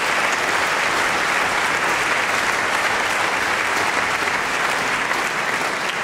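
Large audience in a concert hall applauding steadily.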